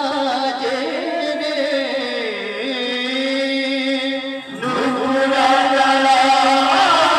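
Male voices singing a devotional kirtan chant over a PA system, with long held notes. There is a brief break about four and a half seconds in, then a louder sung phrase.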